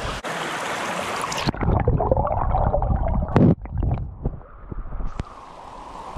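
A rushing stream, then muffled gurgling and bubbling as the GoPro goes underwater about a second and a half in, with a few sloshing splashes. The open-air stream sound partly returns near the end as the camera surfaces.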